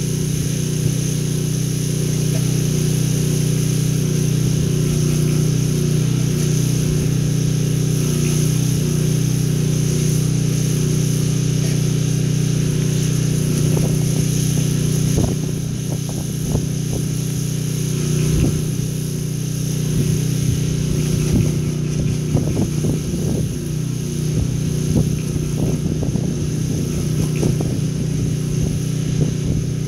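Pressure-washing rig's engine running at a steady drone while water is sprayed, with a high hiss over it. About halfway through the drone dips slightly and a few light knocks come in.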